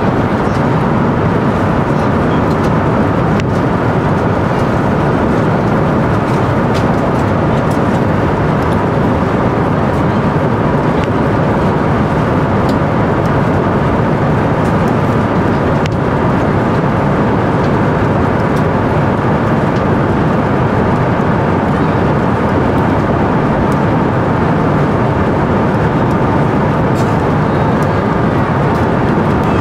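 Steady cabin noise of an Airbus A350-900 in flight: a constant loud rush of engines and airflow, unchanging throughout.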